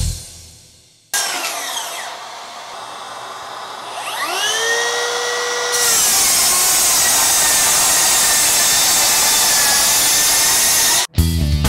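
Makita 40V XGT GSR02 10-1/4" brushless rear-handle circular saw spinning up with a rising whine that levels off. It then rips through stacked OSB subfloor sheets with a loud, steady cutting noise for about five seconds, which cuts off abruptly near the end.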